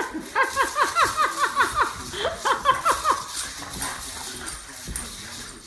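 A dog yipping in a quick run of short, falling yelps, about five a second, then a few more after a brief pause.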